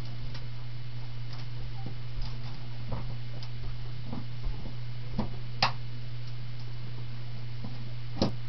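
A steady low hum with scattered light clicks and taps. The strongest click comes about five and a half seconds in, and another comes near the end.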